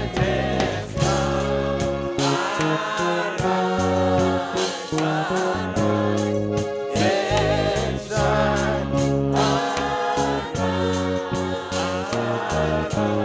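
Gospel worship song: a group of voices singing together over band accompaniment with a steady bass line.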